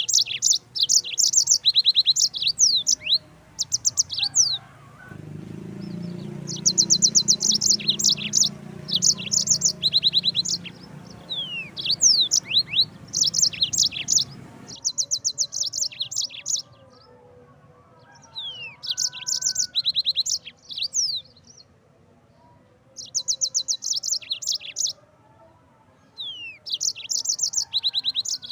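Yellow-fronted canary (Mozambique canary) singing: repeated bursts of rapid high trills and quick sweeping notes with short pauses between phrases. A low background hum runs under the song for several seconds in the middle.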